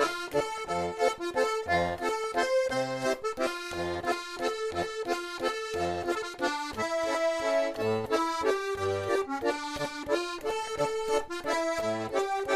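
Accordion music without voice: a melody over a steady, rhythmic bass-and-chord accompaniment, the instrumental break between sung verses of a Basque song.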